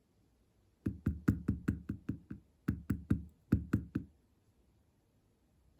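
Two quick runs of dull taps or knocks, about five a second, with a short pause between them.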